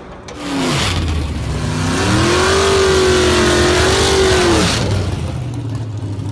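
Drag-racing car engine revving hard and accelerating, held at high revs for a couple of seconds, then dropping away near the five-second mark.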